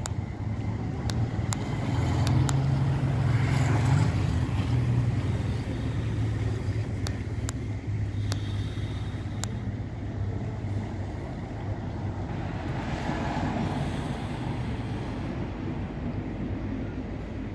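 Low, steady engine rumble, loudest a few seconds in and then easing off, with a few faint ticks.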